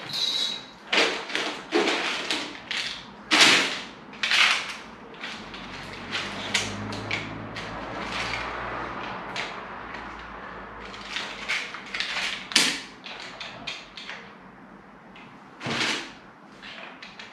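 Irregular knocks, taps and scrapes of plastic window packers being handled and pushed into the bottom corner of a UPVC window frame to toe and heel it square.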